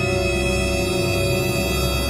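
Music with long, steadily held notes.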